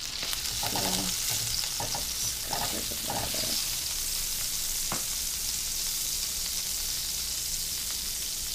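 Melted butter sizzling steadily in a hot frying pan, a high even hiss.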